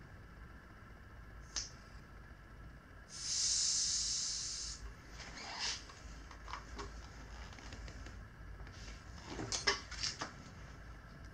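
Air hissing out of a motorcycle inner tube's valve for just under two seconds, about three seconds in, letting a little air out while the tire is being mounted. Light clicks and scrapes of tire-fitting work come before and after it.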